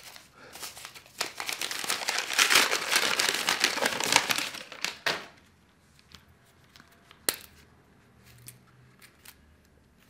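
Brown paper parcel wrapping being torn open and crumpled by hand for about five seconds. After that there are only a few faint handling ticks and one sharp click.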